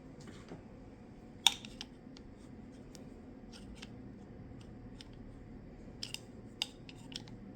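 Sharp clicks and taps of small parts and tools being handled during a blower motor repair, one loud click about a second and a half in and a quick cluster near the end, over a steady low hum.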